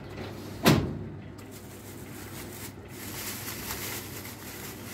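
A single sharp knock about a second in, like something set down on a shop counter. From about three seconds in, thin plastic carrier bags rustle and crinkle as groceries are handled and packed.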